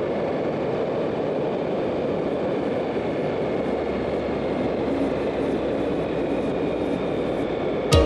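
Steady rushing rumble of a bicycle in motion in a road race, wind and tyre noise on the camera's microphone, even and unbroken.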